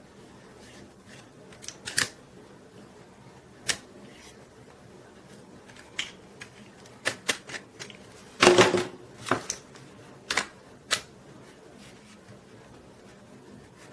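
Clicks and knocks from handling a plastic mini camera tripod and its mount, scattered and irregular, with the loudest cluster of knocks about eight and a half seconds in.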